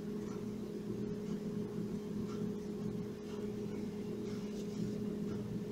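A steady low hum of several even tones, with a few faint soft rustles over it.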